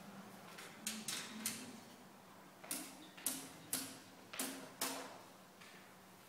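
Hard-soled footsteps on a floor: about eight sharp knocks half a second apart, three near the start and five more a little later.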